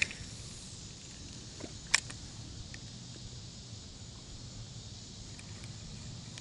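A cast with an Ozark Trail spinning combo: one sharp click about two seconds in, the reel's bail snapping shut after the cast, with a few faint ticks of line and tackle. Under it, a steady faint high hiss of summer-evening insects.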